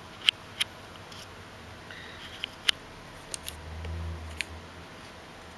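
A handful of sharp clicks, several in quick pairs, from the front-panel keys of an OWON HDS1022M-N handheld oscilloscope being pressed while paging through its menus. A low rumble of handling noise comes in a little past the middle.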